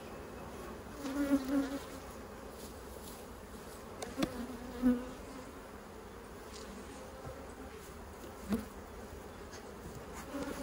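Honey bees buzzing around the hive, with single bees flying close past now and then so the low buzz swells and fades several times. Two or three light clicks or knocks sound in between.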